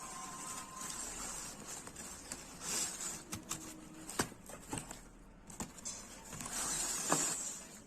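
Close-miked eating sounds of pizza or burger being chewed, with scattered sharp clicks and a couple of louder noisy bursts about 3 and 7 seconds in.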